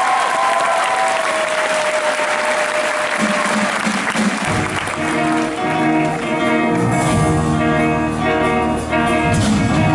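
Audience applause as a held note fades, then instrumental music starts a new number about four and a half seconds in, with a bass line and chords.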